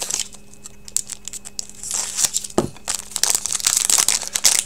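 Foil wrapper of a Panini Crown Royale hockey card pack crinkling and tearing as it is worked open by hand, a hard pack to open. The crinkling is sparse at first and busier after about two seconds, with one dull knock just after that.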